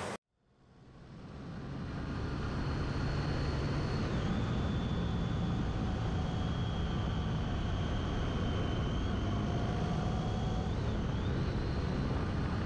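Honda ST1300 motorcycle's V4 engine running steadily, fading in over the first couple of seconds, with a faint high whine above it.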